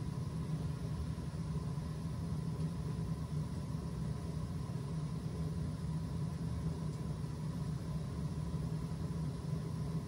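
Gas-fired steam boiler's burner firing, a steady low rumble with a faint steady high tone above it.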